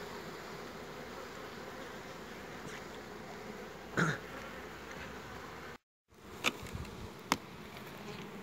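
Honeybee colony humming steadily over an open hive. A short knock comes about four seconds in, the sound cuts out for a moment just before six seconds, and two sharp clicks follow near the end.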